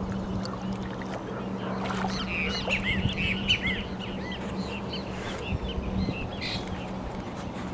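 A bird calling in a rapid run of short chirps for a few seconds, over a steady low hum.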